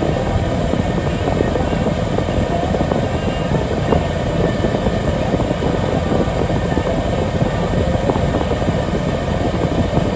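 Steady low diesel-engine rumble heard from inside a truck cab during log loading, with a few faint knocks.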